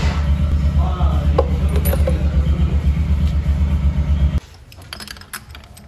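A loud, low, evenly pulsing engine rumble, an engine idling, that cuts off abruptly about four seconds in. After it come light metallic clinks of clutch parts and tools being handled.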